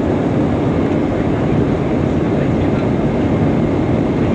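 Airbus A320 airliner in its climb after takeoff, heard from inside the passenger cabin: a loud, steady rumble of jet engines and rushing air that holds even throughout.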